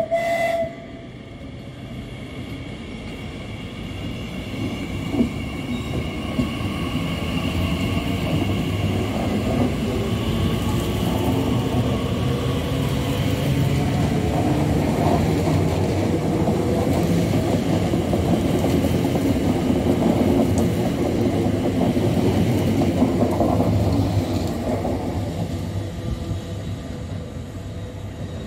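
Class 345 electric multiple unit pulling away and passing close by: a rising electric traction whine over the first several seconds, then a growing rumble of wheels on the rails that swells and eases off near the end. A brief tone sounds at the very start.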